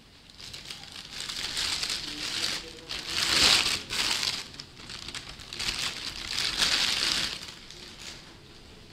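Thin clear plastic bag crinkling as it is pulled off a camera lens, in several spells that are loudest about three and a half seconds in and again around seven seconds, dying away near the end.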